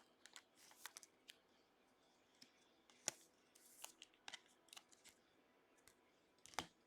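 Faint, scattered clicks and rustles of trading cards and packs being handled, with a sharper click about three seconds in and another near the end.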